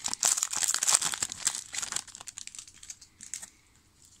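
Trading-card pack wrapper crinkling and tearing open for about two seconds, then a few faint scattered clicks and rustles.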